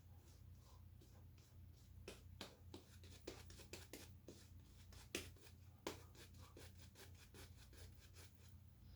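Shaving brush being worked over a lathered face: faint, irregular rubbing strokes and small wet clicks, the lather still a little pasty.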